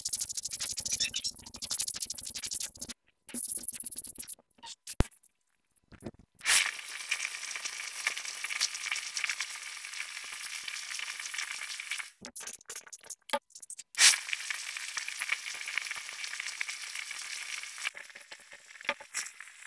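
Handheld hot-air blower running with a steady high hiss, drying a touch-up on a wooden table edge. It starts with a click about six seconds in, stops around twelve seconds, and starts again with a louder click about fourteen seconds in. Before that, quick scratching strokes of a sanding pad rubbed on the wood.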